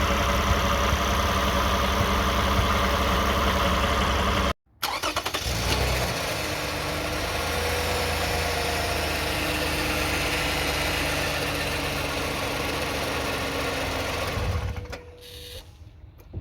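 2009 Toyota Sienna's engine running steadily with the transmission buzz still present. The flex plate looks sound, so the owner suspects the torque converter or transmission pump. The sound breaks off briefly about four and a half seconds in and falls away sharply near the end.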